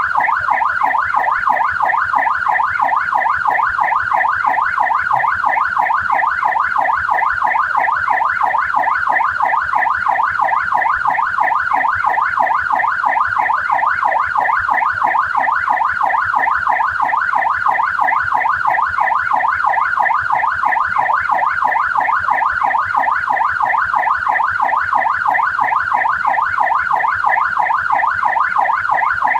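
Australian police car siren on its yelp setting: a continuous, rapid up-and-down electronic wail, sweeping between a low and a high pitch several times a second without a break.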